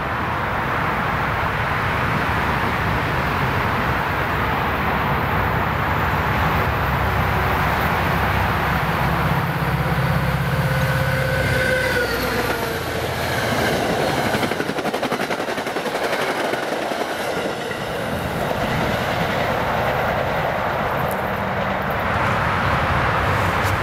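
Metro-North GP40FH-2 diesel locomotive with a turbocharged EMD V16 engine, running steadily as it approaches. About twelve seconds in it passes close by with a whine that drops in pitch. Then comes the rumble and clickety-clack of the passenger coaches rolling past.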